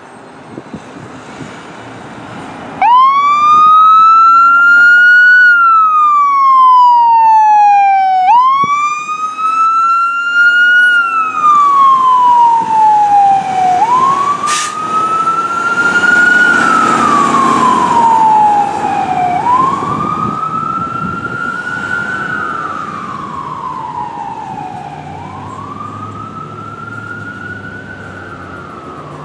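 Fire engine siren starting up about three seconds in and sounding a slow wail, rising and falling about every five and a half seconds. The siren grows fainter over the last half as the engine drives away on a code 3 response.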